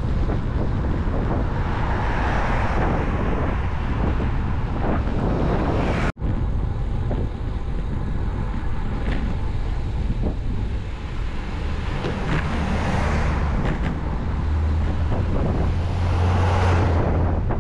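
Wind buffeting a GoPro's built-in microphone on a moving road bicycle, with road noise underneath. The sound cuts out for an instant about six seconds in, and a louder low rumble builds near the end.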